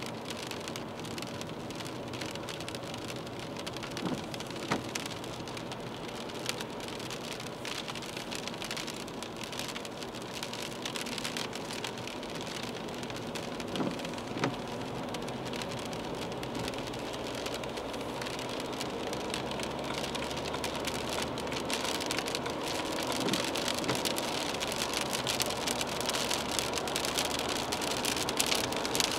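Rain and wet-road tyre hiss heard from inside a car's cabin, a steady rushing that grows louder over the second half. A few short knocks stand out, a pair a few seconds in and another pair about halfway, where the windscreen wiper sweeps.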